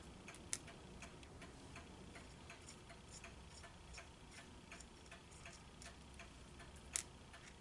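Near silence with faint, regular ticking throughout, and two sharper clicks, one about half a second in and one near the end.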